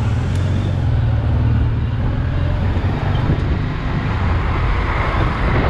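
Honda XRV750 Africa Twin's V-twin engine running at low speed in town traffic, mixed with the diesel of a tanker truck close ahead and alongside. The low engine drone eases off about halfway, leaving road and traffic noise.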